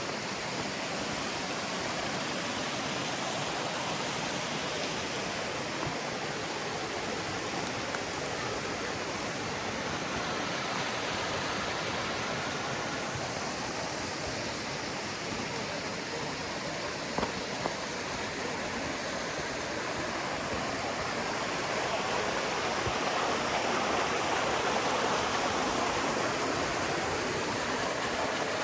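Rushing water running steadily, an even hiss-like rush that grows a little louder about three-quarters of the way through, with a couple of faint knocks.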